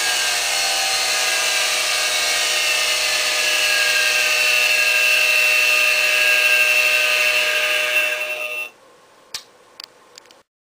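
Sieg X2 CNC mini mill machining aluminium: the spindle and cutter run with a steady high whine and a few tones that slowly shift in pitch. The machine stops abruptly near the end, followed by a few faint clicks.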